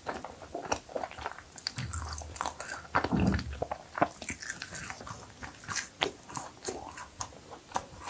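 Close-miked eating of cookies: crisp bites and crunchy chewing, with many irregular small clicks and crackles. Low, muffled sounds swell in the middle.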